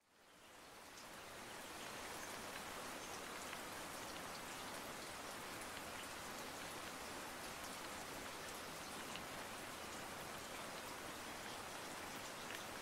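Steady rain, an even hiss with scattered faint drop ticks, fading in over the first two seconds and then holding level.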